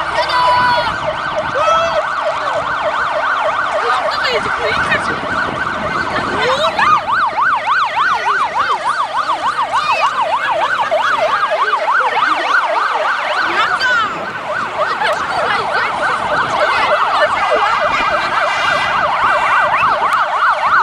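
Fire engine's siren sounding as the truck drives past: slower rising and falling wails at first, switching to a fast yelp about six seconds in, with a brief change in pattern near the middle before the fast yelp carries on.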